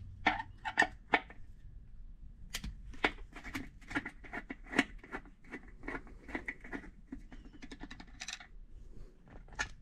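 A screwdriver backing out the screw that holds the rear of a motorcycle seat to the fender, with a series of sharp metallic clicks: three loud ones at the start, then a quicker run of clicks for several seconds, and a few more near the end.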